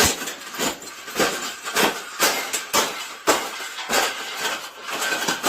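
A wire cage being bent and folded flat by hand: a string of irregular sharp metallic clanks, about two a second, with wire rattling between them.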